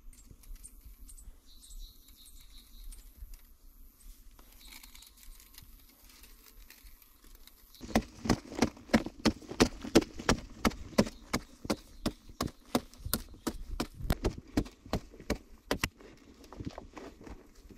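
A hoe chopping into hard clay soil: after a stretch of faint scuffling, it starts about eight seconds in as a quick run of sharp strikes, roughly three a second, each breaking loose earth.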